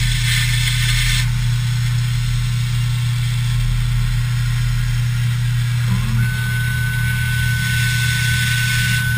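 CNC plasma cutting table running: a steady low hum with a hiss that fades after about a second and returns about six seconds in, joined then by a thin, steady high whistle.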